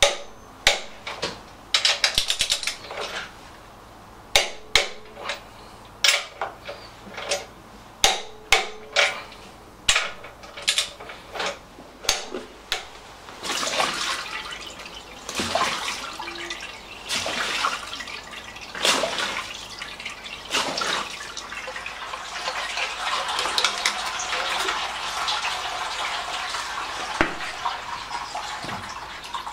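Sharp metallic clicks and clanks from a ratchet wrench on a Lister LR1 diesel's cylinder-head nuts. About halfway in they give way to a steady rush of liquid being poured from a plastic jug into the engine's open crankcase.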